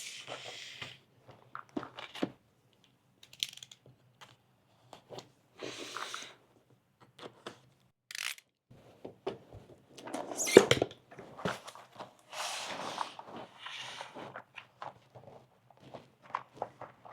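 A cardboard puzzle box being opened and its contents handled: irregular scraping and rustling of cardboard and paper, with a few sharp knocks. The loudest comes about ten and a half seconds in.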